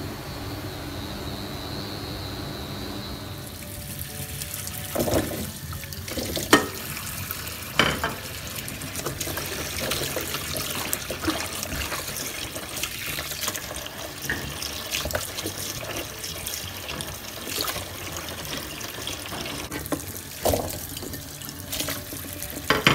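Tap water running into a plastic basin as hands wash a batch of small white eggplants (cà pháo), with splashing and a few sharp knocks. The water comes on about three and a half seconds in.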